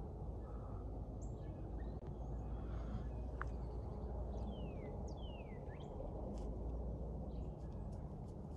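Small birds chirping, with scattered short calls and a few quick downward-sliding whistles, over a steady low rumble.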